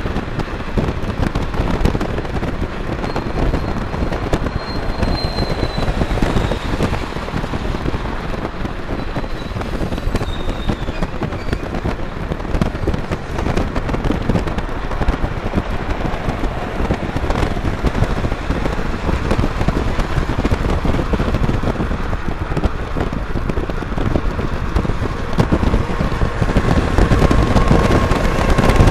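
Steady rush of wind and road noise recorded from a moving car at highway speed, with dense crackling buffeting on the microphone.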